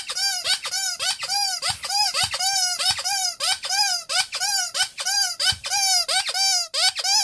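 Rubber squeaky toy squeezed over and over, about two squeaks a second, each squeak rising and then falling in pitch.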